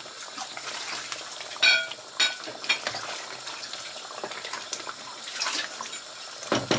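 Wooden spatula stirring a thick chicken curry gravy in a kadai, with two short knocks about two seconds in.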